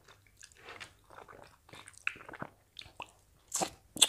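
Close-miked chewing and wet mouth sounds of people eating Nigerian starch and banga soup with their hands, with scattered soft smacks and two louder lip smacks near the end.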